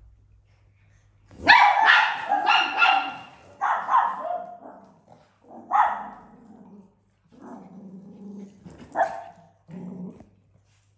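A small poodle-type dog barking: a quick run of barks about a second and a half in, then scattered single barks and some lower, longer sounds. It is play barking aimed at cats.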